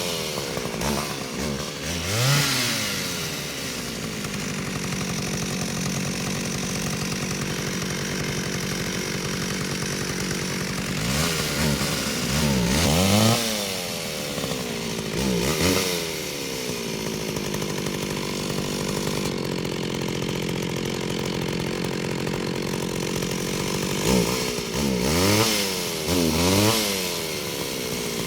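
Chainsaw engine revving up and down in quick blips, settling into a steady low-speed run between three rounds of revving: one at the start, one about eleven to sixteen seconds in, and one near the end.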